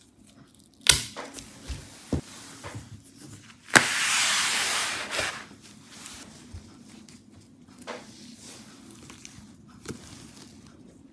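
Small clicks and taps from gloved hands handling a laptop's DDR5 SODIMM memory module and the parts around it, with a sharp click about a second in and another near four seconds. A second and a half of loud rustling follows the second click.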